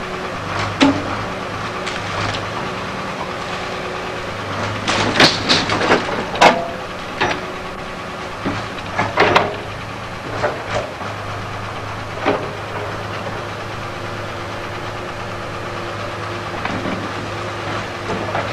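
Heavy machinery running steadily with a low hum, with irregular sharp metallic clanks and knocks, most of them bunched together in the middle.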